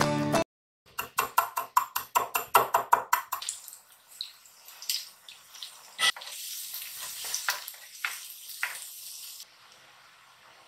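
Eggplant slices frying in hot oil: a steady sizzle with scattered crackles that cuts off suddenly near the end. Before it comes a quick run of about a dozen sharp clicks and pops, several a second.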